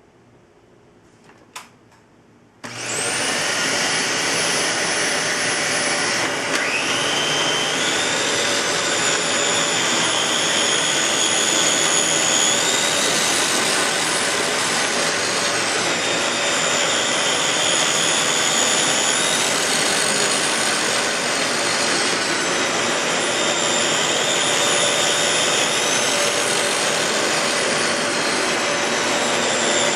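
A Dyson DC15 Ball upright vacuum cleaner switched on with a click, its motor spinning up to a steady loud run with a high whine. The whine shifts up and down in pitch every few seconds.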